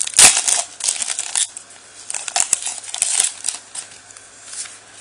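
Foil wrapper of a Pokémon Legendary Treasures booster pack crinkling as it is handled and opened, in irregular bursts that are loudest in the first second and a half.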